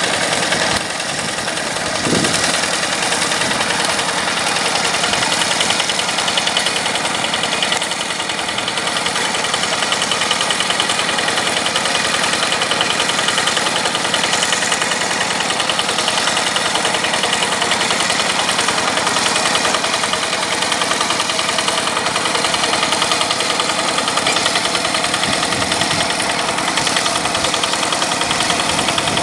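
Yanmar diesel engine of a rice-field tractor running steadily with a fast, even knocking beat.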